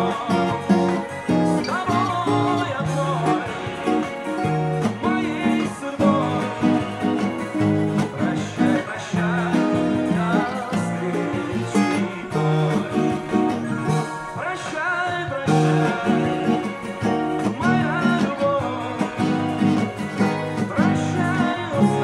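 Acoustic guitar playing the song's chords, with a singing voice carrying the melody over it.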